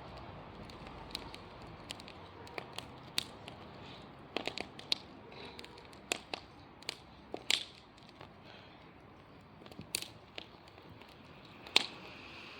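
Wood bonfire crackling, with irregular sharp pops and snaps over a faint hiss.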